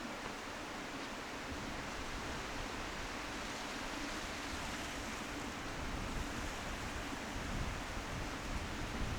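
Wind blowing steadily across open hillside ground, with an irregular low rumble of gusts buffeting the microphone that strengthens a little near the end.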